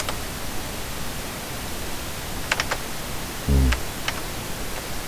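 Steady microphone hiss with computer keyboard and mouse clicks: a quick cluster of three clicks about two and a half seconds in and another single click about a second later, alongside a brief low sound.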